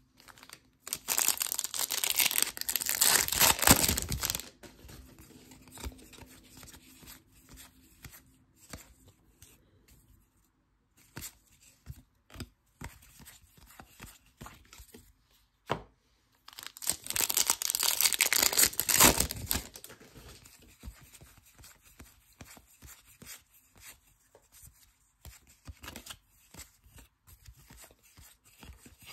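Foil trading-card pack wrappers being torn open and crinkled, twice: one long tear about a second in and another just past the middle. Between them, soft rustles and clicks of cards being shuffled through by hand.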